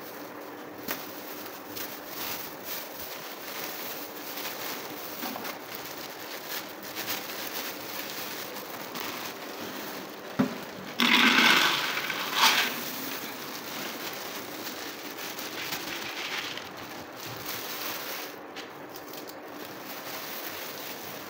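Dried red beans poured from a plastic bag into an empty clear plastic jar: a loud rattling rush lasting about a second and a half, about halfway through. Light crinkling and clicking of the plastic bag and jar come before and after it.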